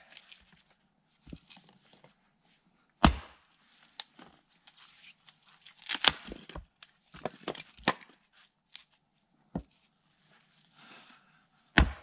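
Axe splitting firewood on a chopping block: sharp strikes every two to three seconds, the loudest about three seconds in and at the very end, with lighter knocks of wood between strikes.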